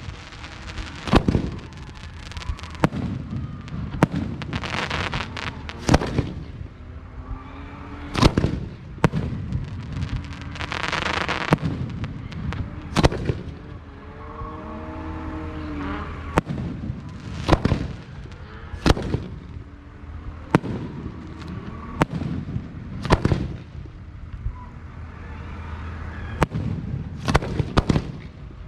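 Fireworks display: a string of sharp bangs from bursting fireworks, one every second or two, with crackling and hissing between the bursts.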